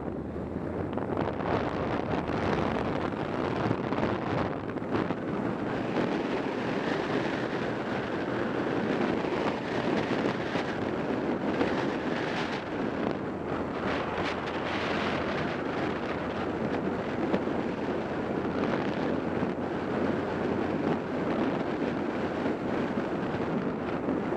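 Motorcycle pulling away from a stop and riding along a street, with heavy wind noise on the microphone over the engine. The noise builds over the first couple of seconds, then holds steady.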